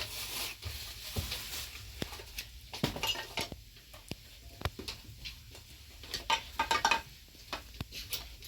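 Dishes and utensils clinking and knocking in a scatter of separate taps, a few of them ringing briefly.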